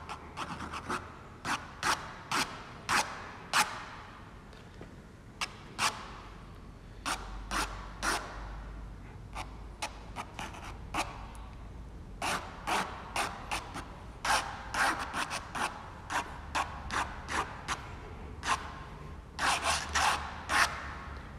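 Ink pen nib scratching across textured watercolour paper in quick, loose strokes: many short scratches in irregular clusters, some in fast runs.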